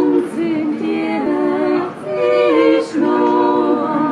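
Small women's choir singing a cappella in harmony, holding each chord for about a second, with short breaks for breath about two seconds in and again about three seconds in.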